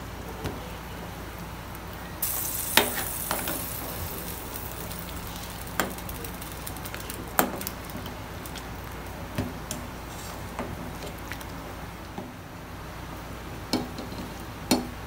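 Metal ladle stirring and scooping boiling broth in a stainless steel pot, knocking against the pot with several sharp clinks, over the steady hiss of the boiling soup.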